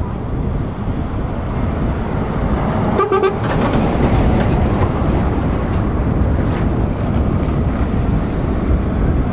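Heavy truck's diesel engine running loudly and steadily, with a short horn toot about three seconds in.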